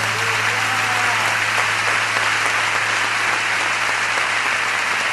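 Audience applauding steadily in a theatre, a dense even clapping, with a low steady hum underneath.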